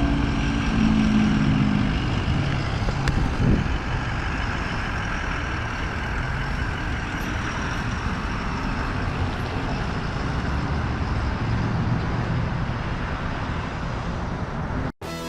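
Steady motor-vehicle driving noise, a continuous rumble and hiss that cuts off suddenly near the end.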